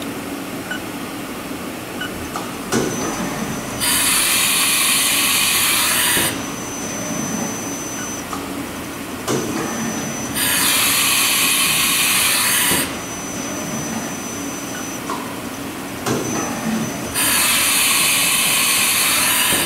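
1996 Haas VF3 CNC machining center running tool changes with its umbrella-type tool carousel: three loud hissing rushes of air, about two and a half seconds each and about six seconds apart, each a second after a click from the changer. A faint high steady whine and the machine's hum run between them.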